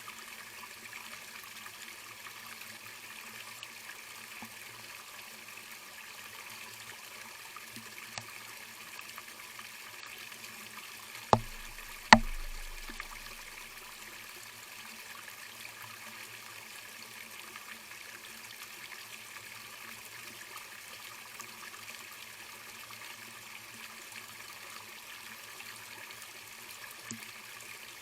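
Steady trickling of running water, with two sharp knocks a little under a second apart about twelve seconds in, the second the louder with a brief low thud trailing off.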